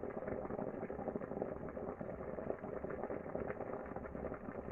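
Water boiling inside a Homelabs handheld clothes steamer, a steady dense bubbling: the steamer has finished heating up and is ready to steam.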